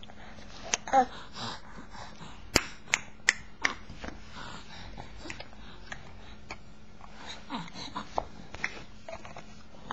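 A baby's short grunts and breathy vocal sounds, with a handful of sharp clicks and knocks in quick succession a few seconds in.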